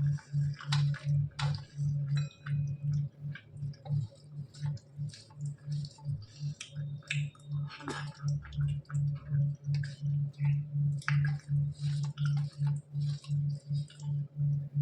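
Close-up eating sounds: a person chewing a meal of rice and curries, with wet mouth smacks and small clicks in a steady rhythm of about three chews a second.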